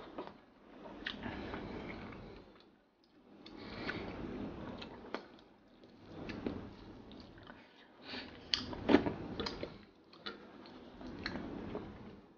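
Close-miked chewing of rice and sardines in sauce eaten by hand, with wet mouth sounds and sharp little lip smacks. It comes in bouts with short pauses between them, the loudest about nine seconds in.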